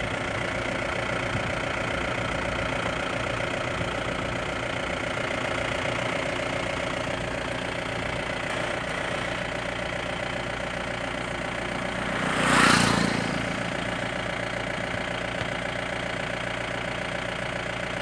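Vehicle engine idling steadily. About two-thirds of the way through, a loud rushing noise swells and fades over about a second.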